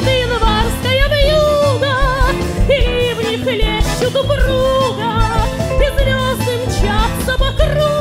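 A woman singing a slow song with a wide vibrato, accompanied by a live band of accordion, double bass and drums.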